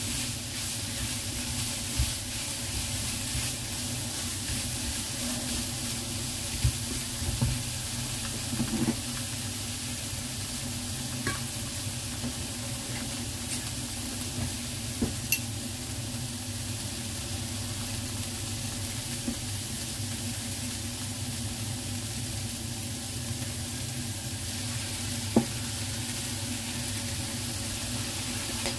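Chopped greens and diced meat sizzling steadily in a nonstick frying pan, stirred with a spatula, with a few sharp clicks of the spatula against the pan.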